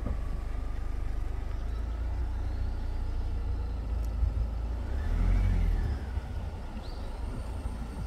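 Steady low rumble of a car moving slowly, heard from inside it, swelling louder for about a second around the middle.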